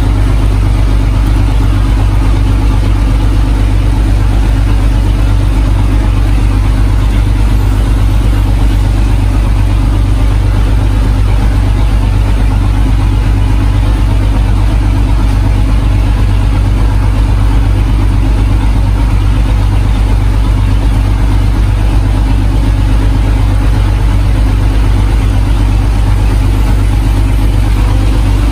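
A boat's engine running steadily at constant speed, a loud, deep, unchanging drone.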